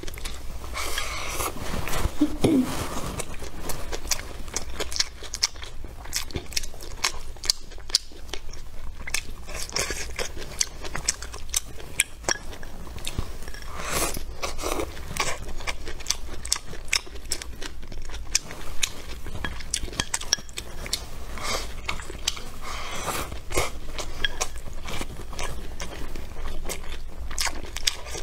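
Close-miked chewing of a mouthful of rice with stir-fried pork, celery and greens, with many small wet crunches and clicks.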